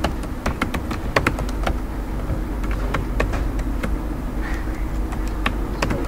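Computer keyboard keys clicking as words are typed, in quick irregular runs with short pauses, over a steady low hum.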